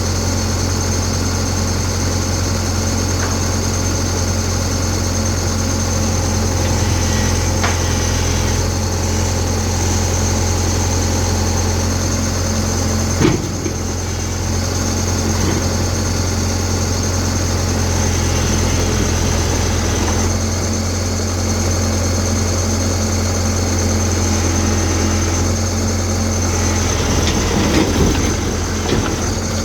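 Tata Hitachi excavator's diesel engine running steadily with a low hum. A sharp knock comes about halfway through, and a few clanks come near the end.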